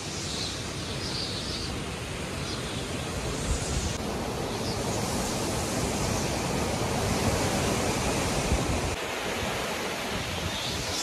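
Strong, gusty tropical-storm wind, a steady rushing that swells a little in the middle, with wind buffeting the microphone.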